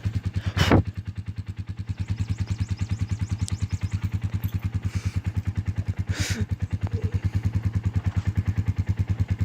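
A motorcycle-type engine running steadily with an even low pulse, about a dozen beats a second. A brief sharp sound cuts in under a second in, and another short one comes around six seconds in.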